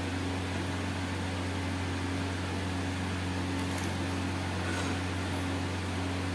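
Steady electrical hum and fan whir in a small room, with a couple of faint clicks about halfway through.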